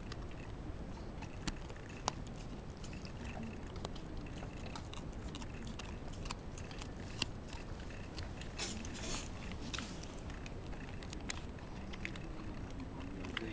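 Shiba Inu gnawing a hard cowhide chew: scattered sharp clicks and crunches of teeth on the hide, with a brief louder scraping rustle about nine seconds in.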